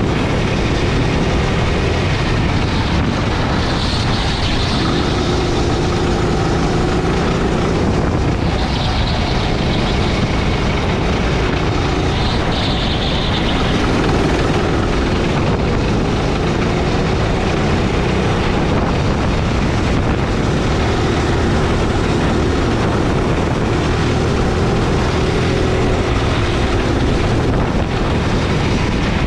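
Petrol engine of a Sodi rental go-kart heard onboard while lapping, its pitch rising and falling with speed through the corners, over steady wind and road noise on the microphone.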